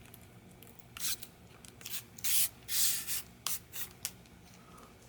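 Protective plastic film being peeled off a new auto-darkening welding lens: a string of short rustling, crackling strips of sound, the loudest about two to three seconds in.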